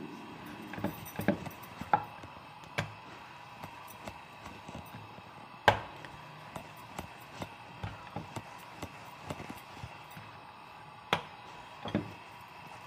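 Wooden rolling pin rolling dough on a wooden board: irregular knocks and taps of wood on wood, the loudest about halfway through.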